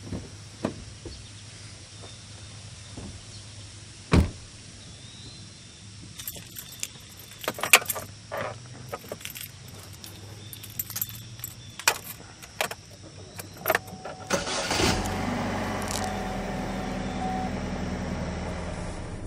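A car door shuts about four seconds in, followed by keys jangling and clicks as the driver settles in. About fifteen seconds in the engine cranks, starts and settles into a steady idle.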